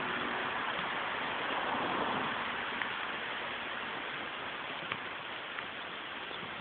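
Electric locomotive of a standing freight train running its equipment with a steady hiss that eases off slightly, with a faint hum fading out at the start and a couple of faint clicks.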